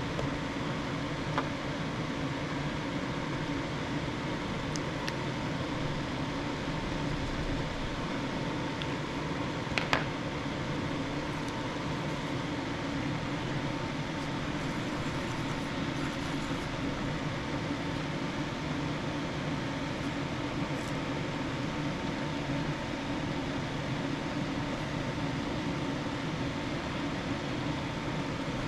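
Steady whirring hum of a small fan, with one short click about ten seconds in.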